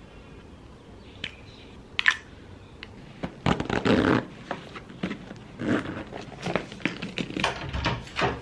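Close-up handling sounds: a few sharp clicks, the loudest about two seconds in. Then a stretch of irregular rustling, clicks and knocks as a leather handbag and its metal fittings are handled, ending in a louder click as a door handle is turned.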